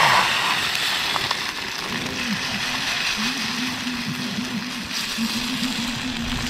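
Beaten eggs poured into a hot pan on a portable gas canister stove: a sudden sizzle as they go in, settling into a steady sizzle over the lit burner.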